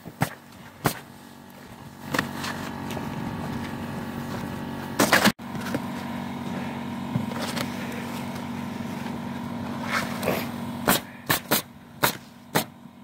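Pneumatic roofing nail gun firing nails through asphalt shingles in sharp single shots: one near the start, a quick run of them about five seconds in, and several more near the end. A steady machine hum runs underneath.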